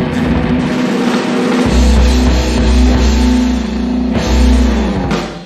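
Loud rock-style music with drums, cutting off near the end and dying away.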